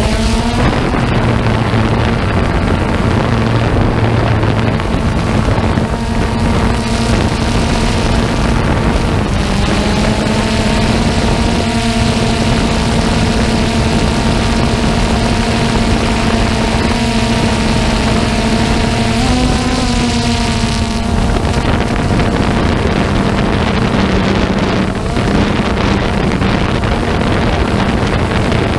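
Multirotor drone's electric motors and propellers running in flight, a steady pitched whine with overtones that steps and glides in pitch about a third and two-thirds of the way through as the craft manoeuvres. Wind buffets the drone's onboard microphone.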